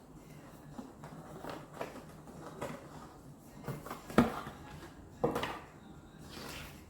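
Light clicks, taps and rustles of a jewellery box and its packaging being handled, with a sharper click about four seconds in and another about a second later.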